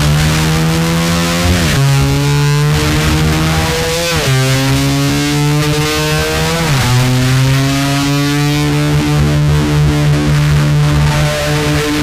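Distorted electric guitar played with a slide, imitating a motor scooter revving. Long held notes swoop down and back up three times, then hold and slowly climb.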